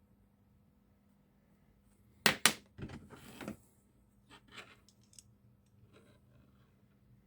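Small metal tools and parts handled on a workbench: two sharp clicks a little over two seconds in, then brief clattering and rustling, and a few lighter clicks and taps after.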